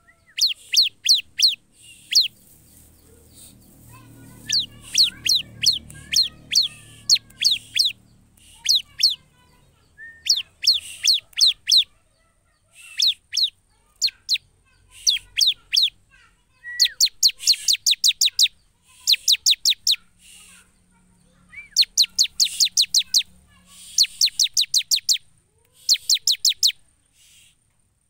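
Ciblek (bar-winged prinia) singing its loud chattering song in repeated bursts of rapid, sharp, high-pitched notes, each burst about a second long and separated by short pauses.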